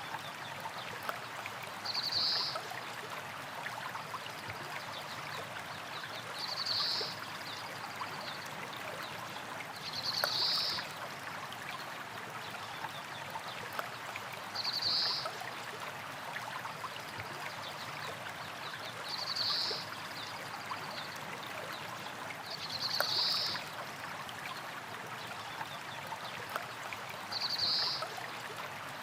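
Small stream of water flowing and trickling steadily over rocks. A short high-pitched sound rises above the water seven times, about every four and a half seconds.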